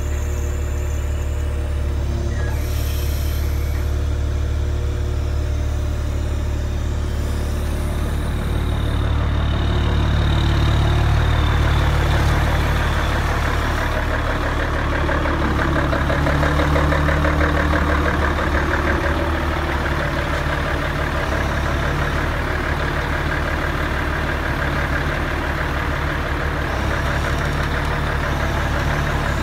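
Diesel engine of a truck-mounted loader crane running steadily while the crane works, driving its hydraulics to lift concrete blocks. It grows louder for a few seconds about a third of the way in, and again a little past the middle.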